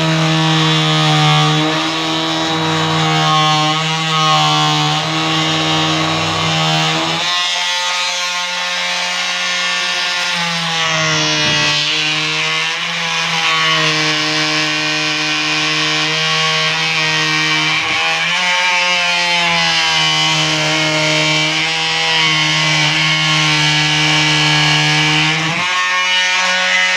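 Porter-Cable multi-saw cutting a thick rubber sheet, its electric motor running with a steady whine whose pitch sags and recovers several times as the blade loads up in the rubber.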